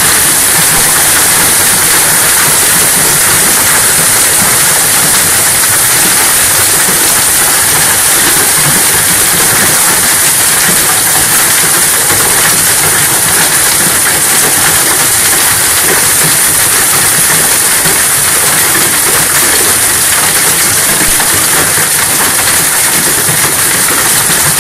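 Heavy hail pelting down, a loud, steady, unbroken hiss of countless small impacts.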